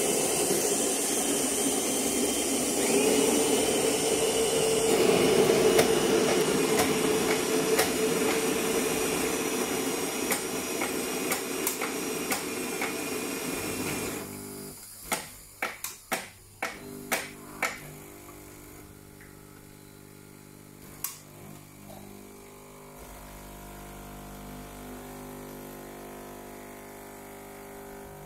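Saeco Incanto bean-to-cup espresso machines at work: the built-in grinders grind beans loudly for about fourteen seconds, then a quick run of clicks and knocks from the brew unit, then a quieter steady pump hum as the espresso is brewed and poured.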